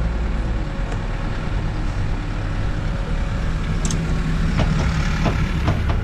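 Diesel engine of a heavy construction machine running steadily, its note shifting about a second in, with a few sharp clatters in the last couple of seconds.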